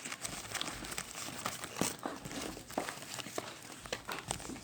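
Packaging of a digital blood pressure monitor being handled during unboxing: plastic and cardboard crinkling and rustling, with scattered light clicks and taps, one louder about two seconds in.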